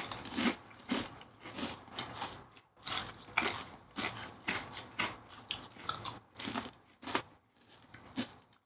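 A person chewing and biting food close to the microphone, a run of short sharp mouth noises about two to three a second.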